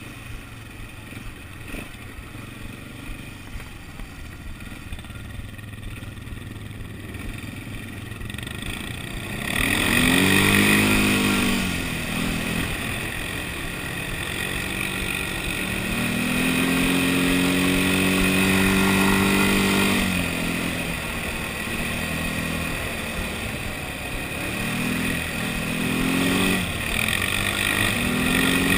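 ATV (quad bike) engine running quietly at low throttle, then revving up about a third of the way in, with its pitch rising and falling as the throttle is opened and eased; it holds a steadier, louder note for a few seconds and revs again near the end.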